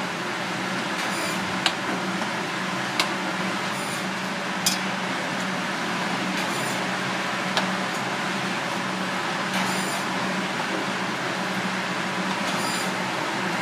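A ladle stirring soup in a pan, clinking sharply against the metal four or five times, over a steady hiss and low hum.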